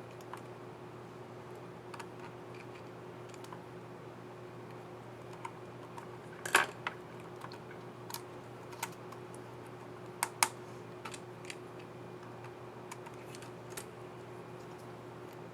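Scattered plastic clicks and snaps of an HP Pavilion 17 AB laptop keyboard's keycap and scissor mechanism being fitted and pressed, loudest a snap about six and a half seconds in and two sharp clicks close together around ten seconds in. A faint steady hum runs underneath.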